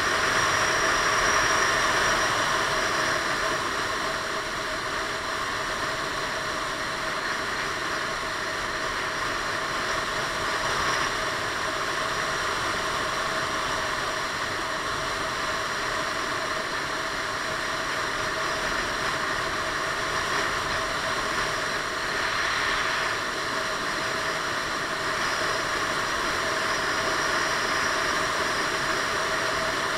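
Steady rush of wind and road noise over the camera at speed, with the even drone of a Piaggio Beverly 500 scooter's single-cylinder engine at a constant cruise.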